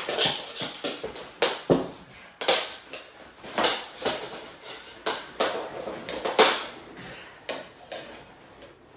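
Two people wrestling on a hardwood floor: irregular knocks, thuds and rustling of clothing, with plastic mini hockey sticks clacking at the start, getting quieter toward the end.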